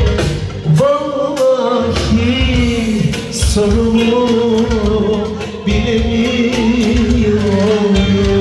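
Loud music: a sung vocal melody over a steady drum beat.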